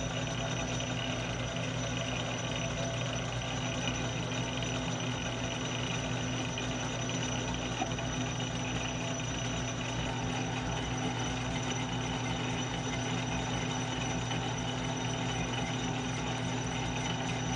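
South Bend metal lathe running steadily at its slow threading speed, the motor and gear train giving a constant hum with a high whine over it.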